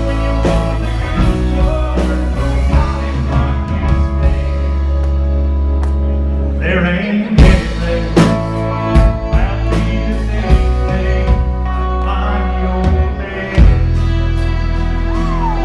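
Live band playing a song loudly: acoustic guitar, electric guitar, bass guitar and drums over a steady bass line, with sharp drum hits in the second half.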